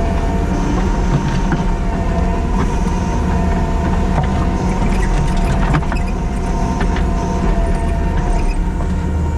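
Kubota SVL97-2 compact track loader's diesel engine running steadily at working speed, with a steady whine on top and a few light knocks.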